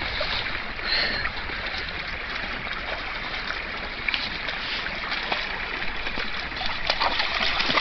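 Shallow stream running over stones, with scattered short splashes and clicks from two Rottweilers wading through the water.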